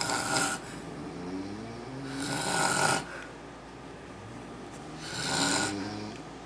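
A sleeping man snoring: loud rasping snoring breaths about every two and a half to three seconds, one just at the start, one about two seconds in and one about five seconds in.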